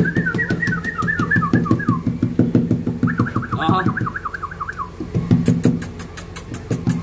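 Background music: a fast, steady drum beat with a high, warbling, siren-like figure of quick falling sweeps that plays for the first two seconds and comes back about three seconds in.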